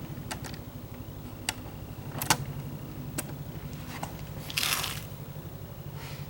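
Kawasaki Z750 Spectre's inline-four engine turning over on the starter without firing, a steady fast rhythmic chugging. Several sharp clicks come through it, the loudest a little over two seconds in, and there is a short hiss just before the end.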